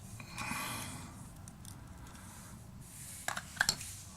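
A metal lens spanner wrench scraping against the cracked, jammed filter ring and its broken glass, followed by a few light clicks about three seconds in.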